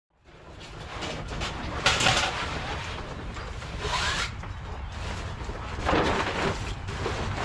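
Wind rumbling on the microphone, with three short rustling, rushing noises about two seconds apart.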